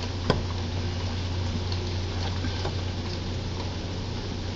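A steady low hum with one sharp click about a third of a second in, then a few faint ticks, as a hand tool works the new lower crankshaft oil seal on a 25 hp Kawasaki engine to seat it straight.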